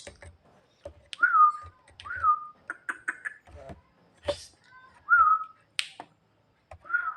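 Javan myna giving short whistles, about four, each dropping fast and then held briefly on one pitch, with sharp clicks and short chattering notes between them.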